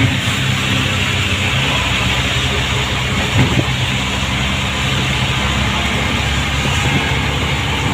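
Auto-rickshaw engine running steadily as it drives along, heard from inside the open-sided cab with rushing wind and road noise.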